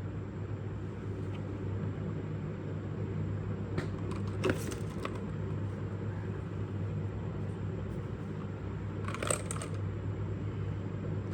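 Steady low background hum, with a few short clicks and rustles about four and nine seconds in as the keyboard is handled.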